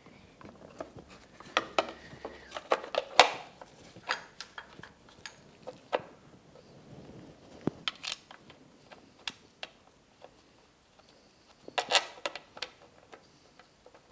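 Plastic spark plug cover being fitted onto a Mercury 115 outboard engine: scattered clicks, knocks and light rattles of hard plastic and tools, with a quick run of sharp knocks about two to three seconds in and another about twelve seconds in.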